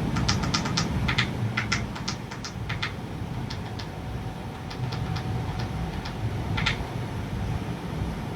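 Irregular light clicks over a low background rumble, several a second for the first few seconds and then more scattered.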